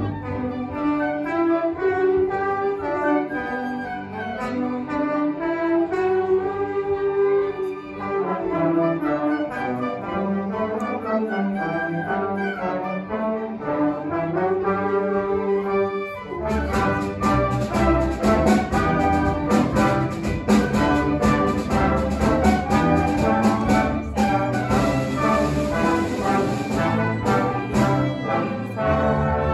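Live symphony orchestra of strings, woodwinds and brass, tubas included, playing. A brass-led melody carries the first half. About halfway through, the whole orchestra comes in with a fuller sound and regular rhythmic strokes.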